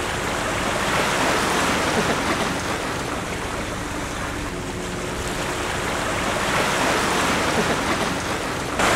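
Sea waves washing and breaking over jetty rocks, with wind buffeting the microphone; the noise swells and eases, and turns suddenly louder near the end.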